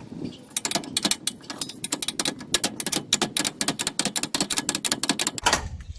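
Hand socket ratchet clicking rapidly, several clicks a second, as a bolt on a manual trailer tongue jack's foot is worked loose, with a louder knock near the end.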